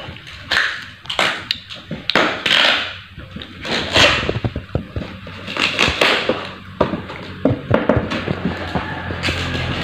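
A wooden shipping crate being pried apart with a machete: irregular sharp knocks and taps on the wooden slats, with scraping in between.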